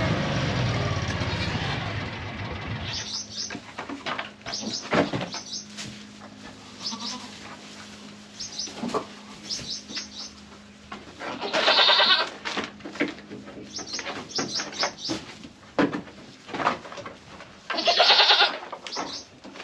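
Dairy goats bleating: two loud, drawn-out bleats of about a second each, the second some six seconds after the first, with small birds chirping in short quick clusters in between. A steady engine-like noise dies away about two and a half seconds in.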